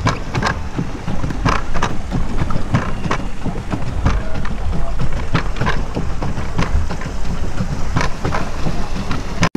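Water splashing and slapping around a small boat in short irregular splashes, one or two a second, with wind buffeting the microphone in a low rumble.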